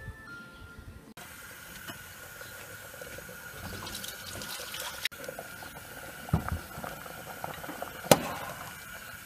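Pot of water boiling with strips of vegetables in it, a steady bubbling hiss. A metal slotted spoon knocks sharply against the pot twice in the second half.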